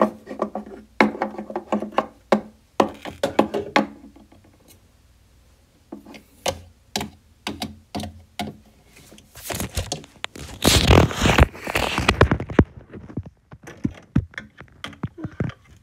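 Small plastic toy figures being handled and tapped on a plastic toy house: a scattered run of light clicks and knocks, with a louder rustling handling noise about ten to twelve seconds in.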